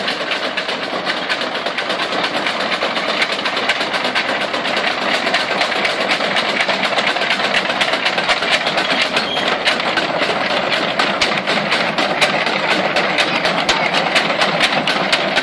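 Renault FT light tank, fitted with a hydraulic drive in place of its original engine, moving past close by. A motor runs steadily under a fast, even clatter from the running gear.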